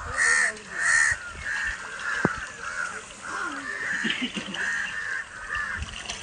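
Crows cawing over and over, about two caws a second, with a single sharp click about two seconds in.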